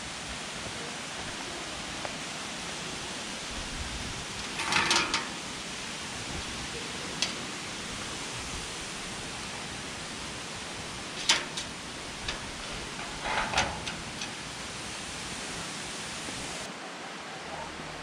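Steady rushing of the Yōrō Falls waterfall, an even wash of water noise. A few sharp clicks or knocks cut through it, a short cluster about five seconds in and several more in the second half, and the rushing eases slightly near the end.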